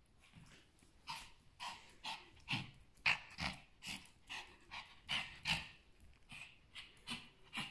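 Pomeranian panting in short, even breaths, about two to three a second, starting about a second in.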